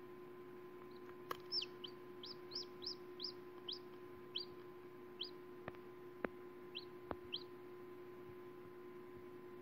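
Chick peeping from inside a pipped egg: about a dozen short, high peeps, each falling in pitch, coming between about one and seven seconds in. A few faint clicks and a steady low hum run underneath.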